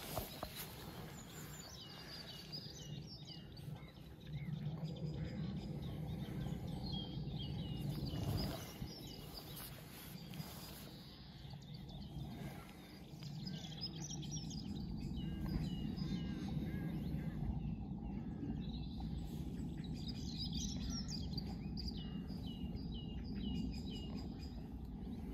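Small songbirds singing, with runs of short, quickly repeated chirps, over a low rumble that comes and goes.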